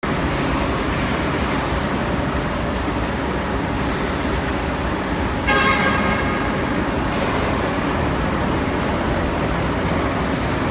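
Steady, loud industrial plant noise, with a horn sounding once for about a second and a half near the middle.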